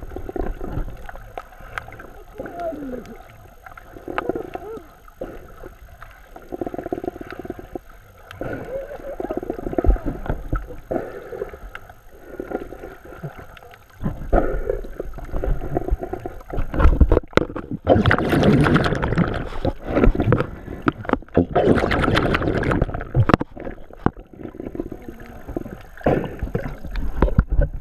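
Muffled underwater sound of moving water picked up by a GoPro held beneath the surface, rising and falling in loudness. About halfway it gets louder, with two harsher bursts of splashing and bubbling.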